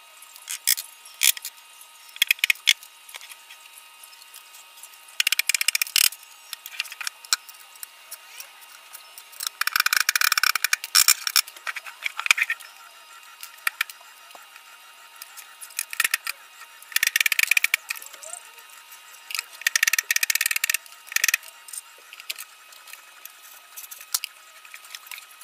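Tools at work assembling a plywood subwoofer box: short bursts of rapid clicking and rattling, each from half a second to about two seconds long, separated by quieter gaps.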